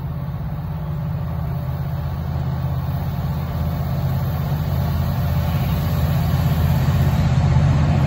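Two approaching EMD diesel-electric freight locomotives, an SD70M-2 leading an SD75I, running with a low, steady engine drone that grows gradually louder as they draw near.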